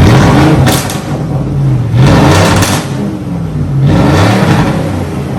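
Ford 5.4 L Triton V8 in a 2008 F-150, running with its muffler removed, revved three times in quick succession. Each rev rises and falls back, with popping from the open exhaust as it comes down.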